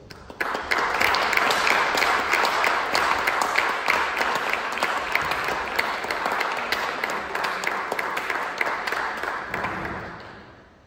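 Audience applauding, a dense patter of many clapping hands that starts abruptly about half a second in and dies away near the end.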